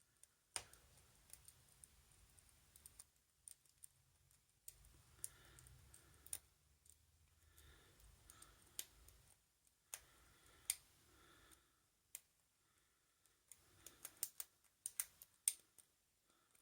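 Faint, irregular metallic clicks and light scrapes of a lock pick and tension tool working the pins inside an ASEC padlock, with a quicker cluster of sharper clicks near the end.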